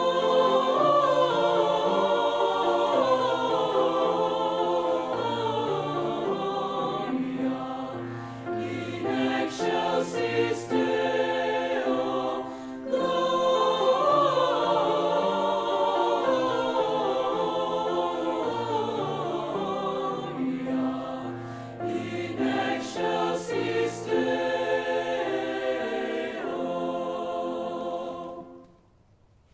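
High school chamber choir singing a Christmas carol in several parts, with long descending runs sung twice. The choir holds a final chord that ends about a second before the end.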